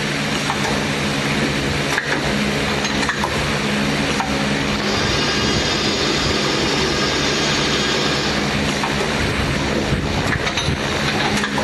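Makino V77 CNC vertical machining center running: a steady machine hum with a wide hiss and a few clicks and knocks. A higher whine joins for about four seconds in the middle.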